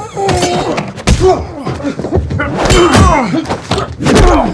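Fight sound effects: a string of heavy punches and body thuds, several over a few seconds, mixed with short grunts and strained cries from the fighters.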